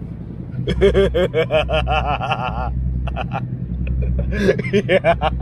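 A man laughing hard in fast, repeated bursts for about two seconds, then again in shorter bursts near the end.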